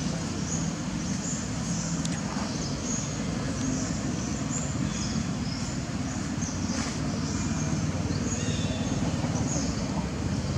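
Outdoor ambience: a steady low rumble with faint, short, high chirps that recur about once a second.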